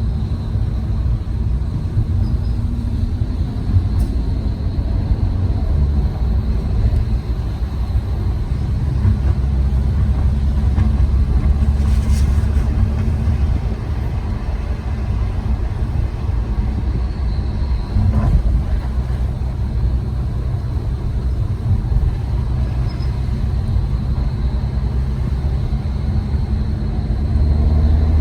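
2021 Mercedes-AMG E53 being driven: a steady low rumble of engine and road noise, with a faint steady high tone and a few faint, very brief high chirps. The engine note starts to rise at the very end.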